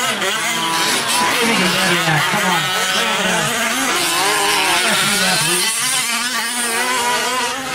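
Small two-stroke gasoline engines of fifth-scale RC race trucks, several at once, revving up and easing off over and over as the trucks take jumps and corners on the dirt track.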